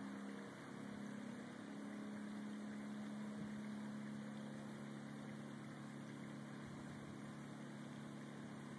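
A steady low engine hum at an even speed, stepping up slightly in pitch about half a second in.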